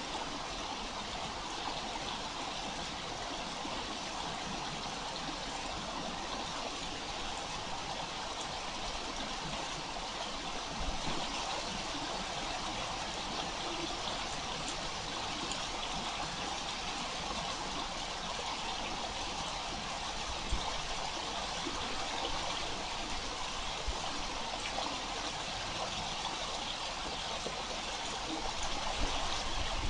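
Steady rush of running water from the flooding of a burst above-ground pool.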